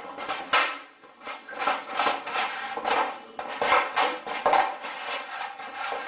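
Plastic washbasin scraping and knocking along a stone floor as a pug shoves it with its head, in a run of irregular scrapes about every half second to a second.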